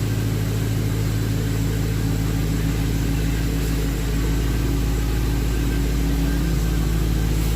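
Pontiac G8 GT's 6.0-litre V8 idling steadily.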